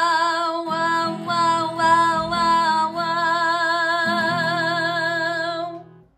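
A woman singing a long held note with vibrato, the drawn-out last "hello" of a hello song, over a strummed acoustic guitar. The voice and guitar stop together near the end.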